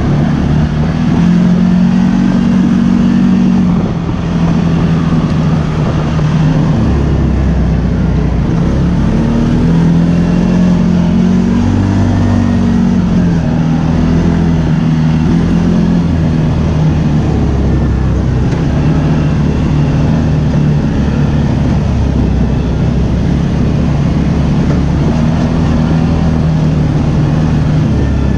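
ATV engine running under way, its pitch stepping up and down repeatedly as the throttle is opened and eased, over a continuous rumble.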